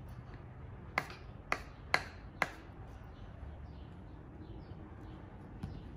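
A small plastic stamp knocked down onto a sheet of paper on a wooden tabletop: four sharp taps about half a second apart, then a fainter one near the end.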